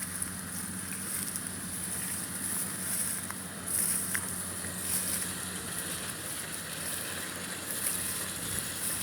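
Rice harvester machine running steadily: a constant low engine hum with an even rushing noise over it.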